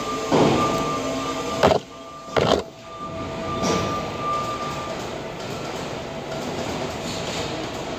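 A machine running with a steady hum and a few held tones, broken by several short, loud bursts of noise in the first four seconds.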